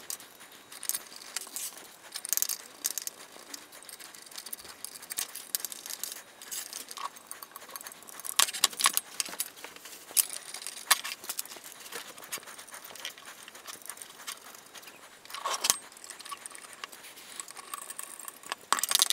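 Small metal screws and nuts clinking and rattling as they are handled and fitted to black aluminium extrusions, with scattered light clicks and a louder knock about fifteen seconds in.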